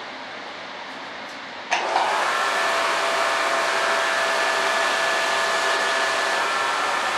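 An electric blower motor switches on with a click a little under two seconds in. It then runs steadily: a loud rushing whir with a faint steady whine.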